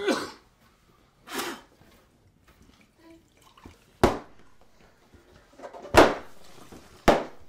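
A swing-top glass bottle being opened, with a short noise a little over a second in, then water poured from it into a drinking glass. Sharp glass knocks come about four, six and seven seconds in.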